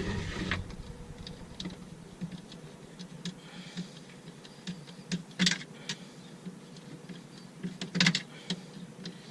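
Scattered light clicks and taps, like small parts and hand tools being handled, with two sharper clicks about five and a half and eight seconds in.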